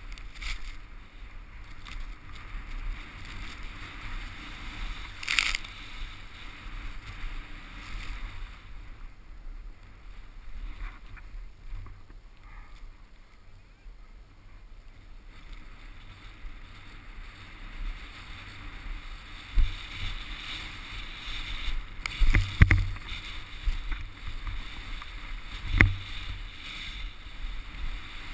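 Snowboard sliding through powder snow: a continuous rushing hiss that eases off for a while in the middle. A few sharp knocks stand out, one about five seconds in and several in the last third.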